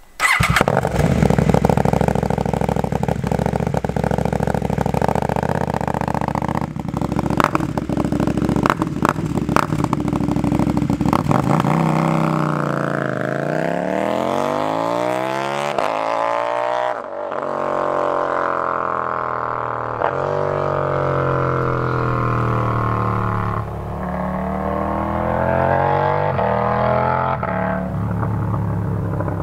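KTM Duke 790/890 parallel-twin engine through an Austin Racing RS22 de-cat exhaust, running loud close by. About twelve seconds in, the bike pulls away and accelerates up through the gears, the pitch climbing and then dropping at each shift, four times.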